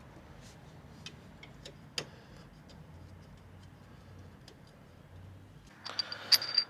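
Faint, irregular clicking of a ratchet wrench tightening a bolt, followed near the end by a louder clatter of metal tools.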